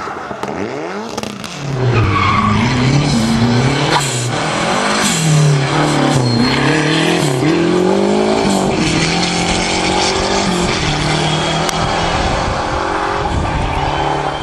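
Rally car engines revving hard under full throttle, the pitch climbing and dropping again and again through gear changes, with tyres skidding.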